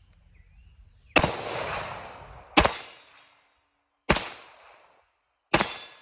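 Four .45 ACP shots from a Colt 1911 Series 80 pistol fired at an even pace about a second and a half apart, each with a short fading tail. The pistol is firing handloaded rounds, which it feeds and cycles without a stoppage.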